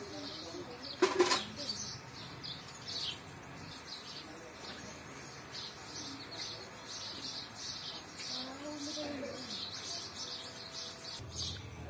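House sparrows chirping: a steady run of short, high chirps, with a brief louder burst about a second in.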